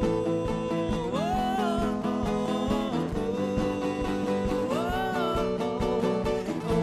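Live band music in a country style with guitar. A held melody note bends upward twice, about a second in and again near five seconds.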